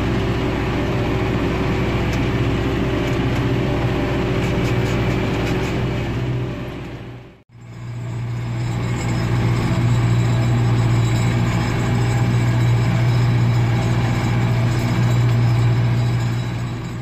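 John Deere 6120B tractor engine running steadily under load while pulling a cultivator, heard loud inside the cab, which is poorly insulated on this trial tractor. The sound fades out at about seven and a half seconds and fades straight back in.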